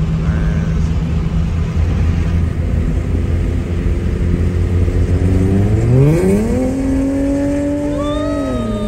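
Car engine running steadily, then revving up sharply about six seconds in as the car accelerates, holding high and easing off near the end. Heard from inside a car.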